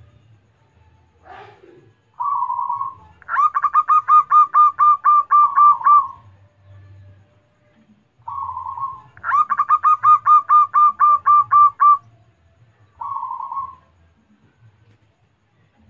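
Zebra dove (perkutut) singing: two song phrases, each an opening coo, a quick run of about a dozen short staccato cooing notes, and a closing coo.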